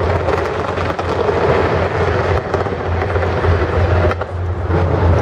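Fireworks fired from the sides of the Taipei 101 skyscraper, heard from close beneath: a dense, unbroken crackle of many small reports over a steady low rumble.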